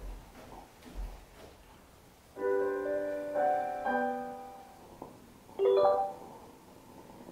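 Electronic piano-like chimes from a Bluetooth speaker: a short run of a few notes, then after a pause a brief second chime as it connects to the phone. Two soft thumps come just before.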